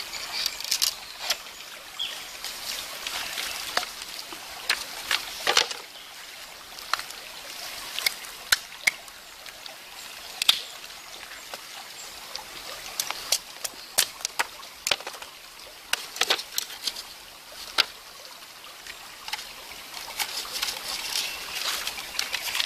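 Knife cutting and splitting a green bamboo stick against a rock: irregular sharp clicks and cracks, over the steady trickle of a shallow stream.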